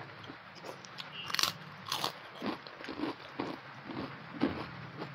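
A person chewing and crunching food close to a clip-on microphone, a run of short crunches about two or three a second, the loudest two early in the run.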